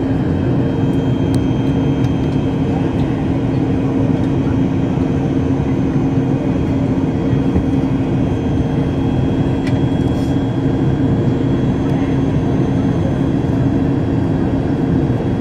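Airliner cabin noise in flight: a steady drone of engines and rushing air with a constant low hum, unchanging in level.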